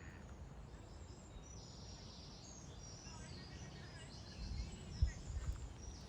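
Small birds chirping and trilling faintly in the background over a steady low outdoor rumble. A few low thumps on the microphone come near the end.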